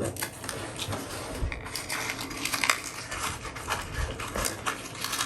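Packaged craft supplies being handled: irregular rustling of plastic sleeves and paper with light clicks and taps.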